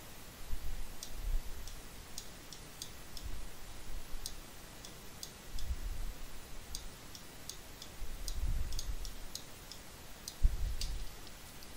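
Computer mouse clicking: light, irregular clicks, sometimes several in a second, with a few soft low thuds in between.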